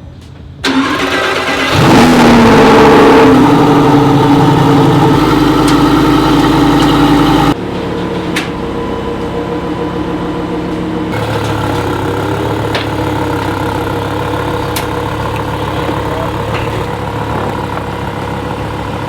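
Lamborghini Huracán EVO's 5.2-litre V10 starting on its stock exhaust: a short crank, then it catches with a rising rev flare and holds a loud fast idle. About seven and a half seconds in, it drops abruptly to a quieter, steady idle.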